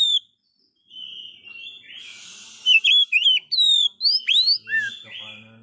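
Oriental magpie-robin (kacer) singing: loud, clear whistled phrases of rising and falling notes, broken by short pauses. A faint low hum comes in near the end.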